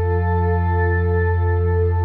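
Ambient background music: a steady, sustained chord of held tones with no beat.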